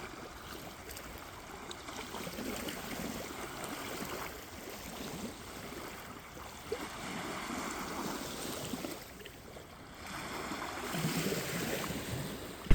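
Gently moving water, a low steady wash of outdoor ambience that changes character a couple of times, about four and ten seconds in.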